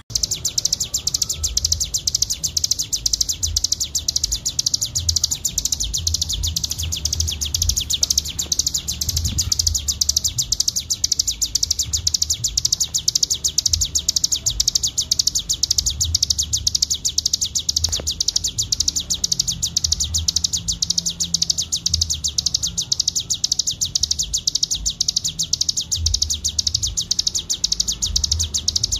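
Ciblek gunung (cigun) singing in full 'ngebren' style: a fast, unbroken, high-pitched buzzing trill of rapid even notes.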